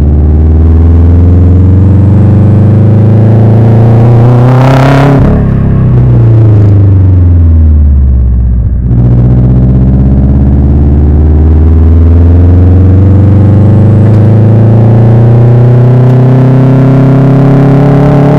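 Subaru Impreza GB270's turbocharged flat-four engine running through a custom 3-inch exhaust, revs climbing for several seconds up to a brief loud rushing sound, then falling away. After a short drop near the middle, the revs climb again in one long, slow pull.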